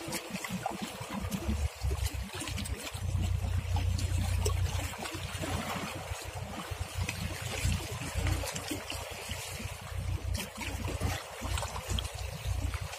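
Choppy water splashing and lapping, with wind buffeting the microphone as an uneven low rumble that comes and goes in gusts.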